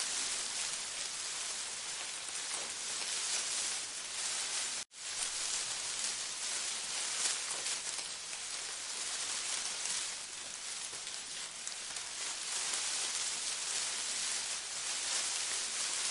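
A steady, even hiss of noise that cuts out for an instant about five seconds in.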